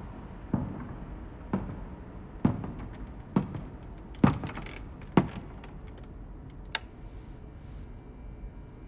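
A slow series of six thuds, about one a second, getting louder, then a single fainter tap, over a low steady hiss.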